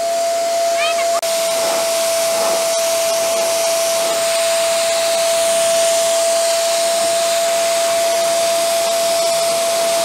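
Electric balloon pump used as a blower to dry a wet parrot: a steady rush of air with a constant whine from its motor.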